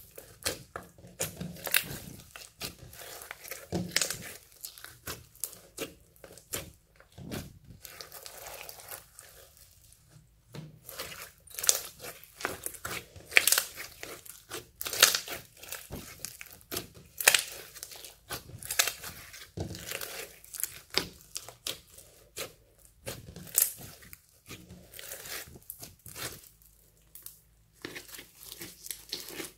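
Hands kneading and stretching floam slime, clear slime packed with small foam beads and glitter, giving irregular bursts of sticky crackling and clicking as it is squeezed and pulled apart.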